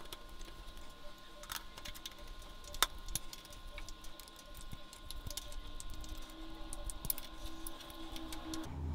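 Scattered small clicks and taps of hand tools and screws as the lathe's start switch is being refitted, over a faint steady hum.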